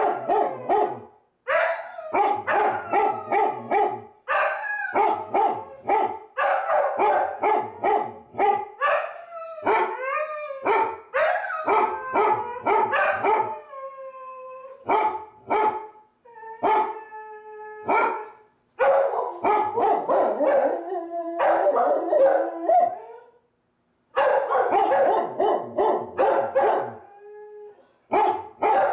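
Dogs barking in fast, loud runs of several barks a second, broken by short pauses, with drawn-out howling notes around the middle.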